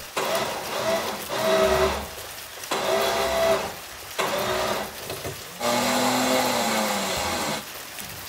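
Truck's electric winch motor whining in short bursts, about five pulls with short pauses between, the last one the longest, each rising in pitch as it spins up and falling as it stops. The winch is being bumped a little at a time to drag the shed a short way.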